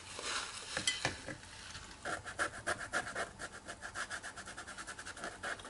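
A damp, short-bristled watercolour scrubber brush scrubbing back and forth on watercolour paper to soften painted edges, in quick rhythmic strokes that settle into a steady pace about two seconds in.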